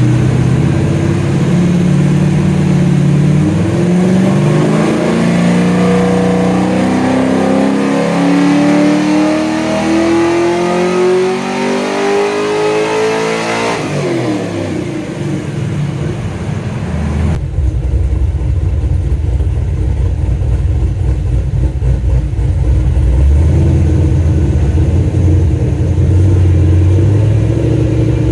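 LS1 5.7-litre V8 with a Crow 236/242 cam on a 113 lobe separation and Blackwell CNC-ported heads, on a power run: the engine pulls up steadily through the revs for about ten seconds at full throttle. It then lifts off, with the revs falling quickly, and drops back to idle.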